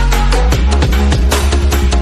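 Electronic rock song playing loud, an instrumental stretch with heavy bass, fast drum hits and synth lines and no vocals.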